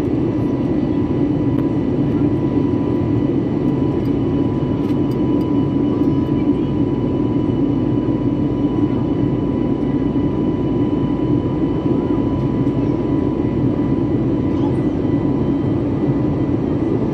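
Steady engine and airflow noise inside the cabin of an Airbus A320neo in flight: an even, low rush with a faint steady whine above it.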